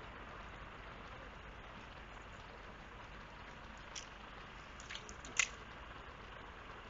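Faint steady outdoor hiss, broken in the second half by three short, sharp clicks, the last the loudest.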